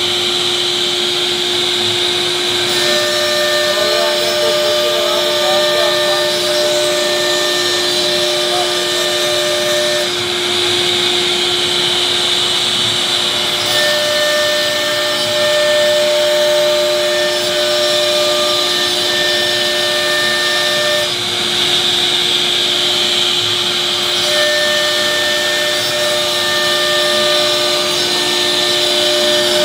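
CNC router spindle running with a steady whine as the bit cuts grooves into a sheet of board, over a steady hiss of cutting and dust extraction. Higher whining tones come in and drop out in stretches of several seconds.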